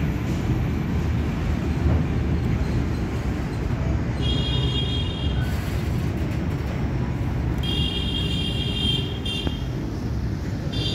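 Freight train of flat wagons carrying army vehicles rolling slowly past, a steady low rumble of steel wheels on the rails. A high squeal rises out of it three times: about four seconds in, about eight seconds in, and near the end.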